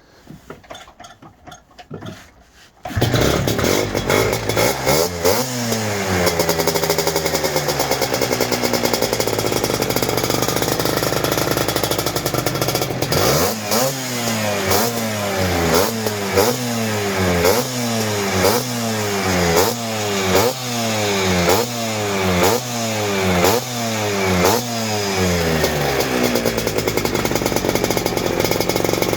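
Lambretta scooter's two-stroke single-cylinder engine with an Imola 198 cylinder kit, starting up about three seconds in and revving once before settling to idle. It is then blipped about a dozen times, roughly once a second, each rev rising and falling back, and returns to idle near the end.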